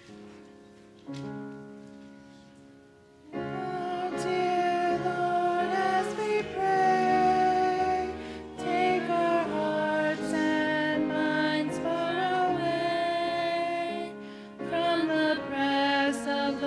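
A short keyboard introduction of held chords, then about three seconds in a congregation starts singing a hymn over the accompaniment, with women's voices the most prominent.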